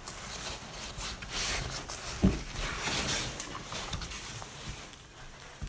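A hand rummaging through a cardboard box full of foam packing peanuts: an irregular rustling and crackling of the peanuts shifting against each other and the box, with a single dull thump about two seconds in.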